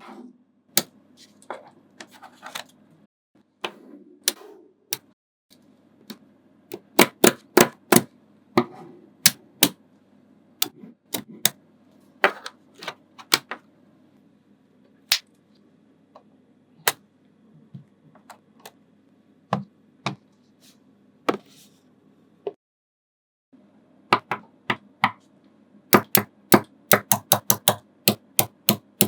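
Small magnetic balls clicking sharply as they snap onto one another, in irregular single clicks and quick runs, with a fast run of clicks near the end.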